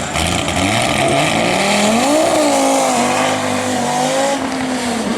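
A historic rally car's engine running hard on a special stage. Its note drops at first, rises sharply about two seconds in, then holds and eases off.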